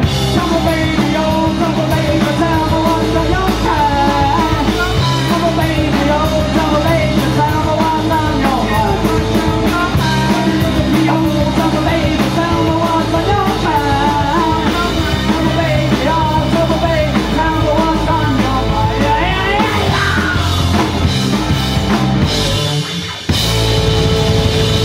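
Live rock band playing loud and fast: distorted electric guitars, bass and a drum kit, with a shouted lead vocal. Near the end the band drops out for a moment and then crashes back in.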